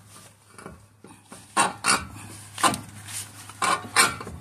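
Several sharp metallic clinks and knocks as the splined outer end of a 2021 Chevy Silverado's front CV axle is worked by hand out of the steering knuckle and hub, metal striking metal.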